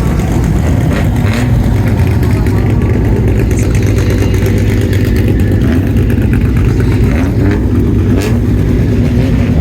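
Loud car engine exhaust running at low revs, a steady deep rumble with faint rises in pitch.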